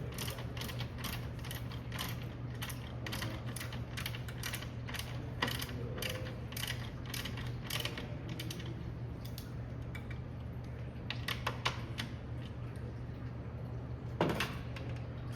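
Hand ratchet clicking in short, irregular runs while T30 Torx screws are driven back in, over a steady low hum.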